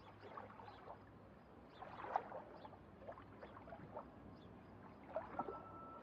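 Faint underwater ambience: air bubbles gurgling, with many short scattered bubbly blips over a low hiss. A held musical note comes in near the end.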